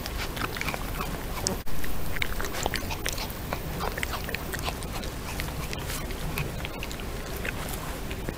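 European badger foraging close to the microphone with its nose in the grass: sniffing and chewing, with many small crackles and clicks of rustled vegetation over a steady hiss. There is a brief gap about one and a half seconds in, then the sound comes back louder.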